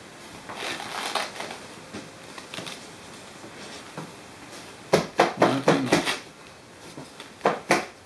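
Handling noise as a towel-wrapped bird and the vet wrap on its wing are worked by hand: soft rustling, then a quick run of about five sharp crackles around five seconds in and two more near the end.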